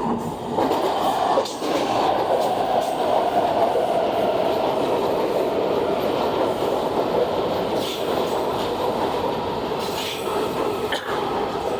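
Washington Metro railcar train pulling into the station: a steady rumble of steel wheels on rail that swells about half a second in, with a few sharp clicks.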